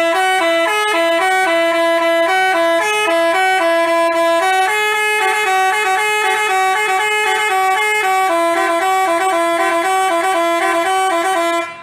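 Telolet basuri musical bus horn playing a tune of stepping notes, some held and some quick, starting abruptly and cutting off near the end.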